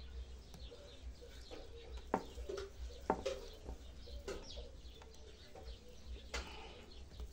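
Faint birds in the background: a dove cooing and small birds chirping, with a few light, sharp clicks about two, three, four and six seconds in.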